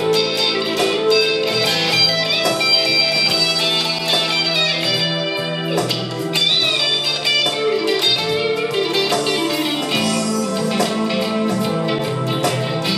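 1979 Fender Stratocaster electric guitar played through a Fender Mustang I amplifier: a run of picked single notes and chords, with several notes bent up in pitch.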